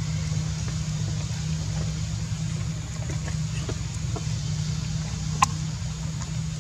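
Steady low hum of an idling engine, with one short sharp click about five seconds in.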